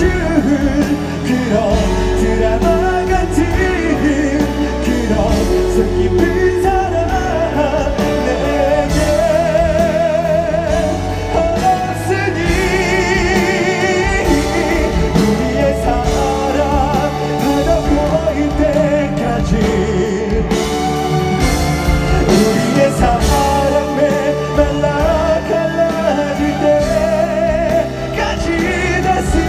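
Live performance of a pop ballad: a male voice singing sustained, wavering notes with vibrato over full band accompaniment with drums.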